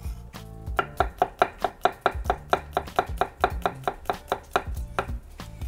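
Chef's knife chopping garlic cloves on a wooden cutting board: quick, even strokes of the blade knocking on the board, about five a second.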